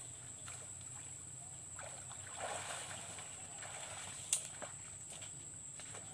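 Faint sloshing and splashing of water as a man wades out of a muddy stream onto the bank, swelling briefly about two and a half seconds in. A single sharp click a little over four seconds in is the loudest sound.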